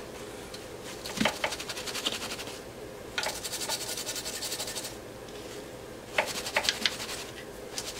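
Scrubbing and wiping a circuit board with a tissue and a small tool: rapid scratchy rubbing strokes in three bouts, with a few sharper clicks, cleaning off flux around a freshly soldered joint. A faint steady hum sits underneath.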